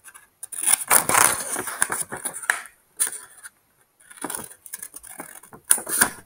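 Sheets of paper crinkling and rustling as they are turned in the hands and cut with scissors, in irregular bursts, the longest about a second in.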